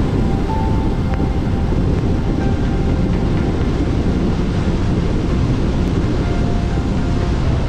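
Steady low rumble of a car driving along a wet road: tyre and road noise with the engine underneath, holding even throughout.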